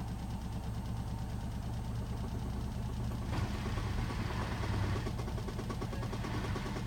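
Hotpoint WMFUG 942 washing machine running, a steady motor hum with a broader rush of noise swelling about three seconds in.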